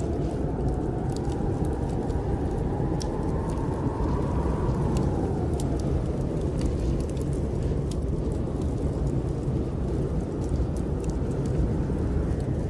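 Snowstorm wind blowing steadily, its low howl rising in pitch and then sinking back partway through, mixed with a wood fire crackling in scattered sharp pops.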